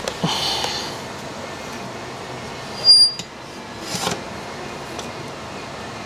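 Workshop sounds from TIG welding work on a steel downpipe: a steady hiss with a few light knocks, and one short, loud, high-pitched ring about three seconds in.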